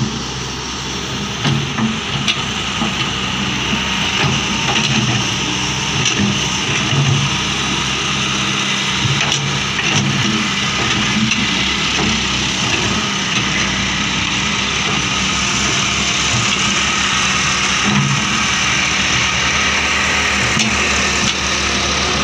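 ETEC wheeled excavator's diesel engine running steadily while the machine digs, with a steady high whine over it and a few short knocks.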